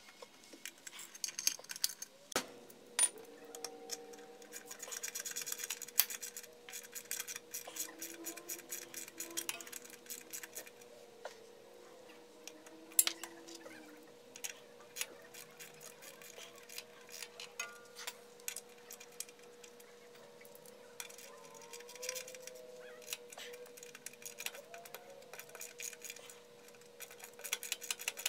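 Hand ratchet clicking in quick runs, with scattered metallic clinks of socket and bolts, as the oil pan bolts are run in. A faint steady hum sits underneath.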